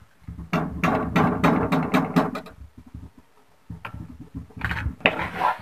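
Wooden spatula stirring and scraping green peas in a granite-coated nonstick kadhai: a quick run of scrapes and knocks, a pause of about a second past the middle, then more stirring.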